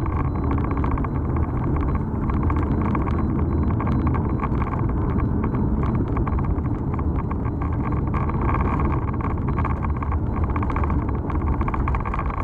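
A car driving: steady road and engine noise heard from inside the moving vehicle, dull and muffled on a rain-soaked camera microphone, with light crackling throughout.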